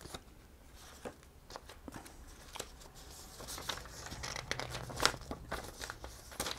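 Paper and thin white card rustling and crinkling as an iPad box's document pack (quick start guide and card sleeve) is handled and pulled apart by hand. It is a string of small sharp snaps and rustles that grows busier in the second half, with one louder snap near the end.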